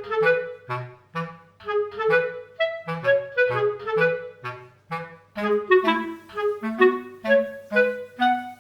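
Light background music: a clarinet-like woodwind melody of short, bouncy notes over a steady bass line.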